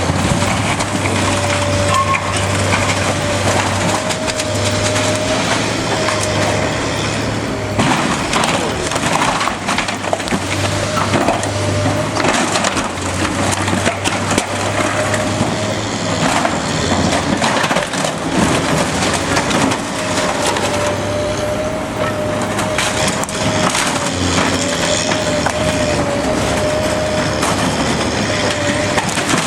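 Heavy demolition machinery crushing and tearing material: a steady engine drone with a wavering whine over it, and repeated crunching, cracking and splintering.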